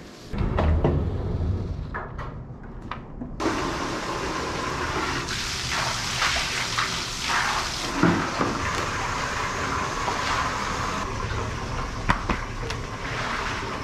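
Water running in a steady rush that starts about three seconds in and keeps going, with a few short knocks over it.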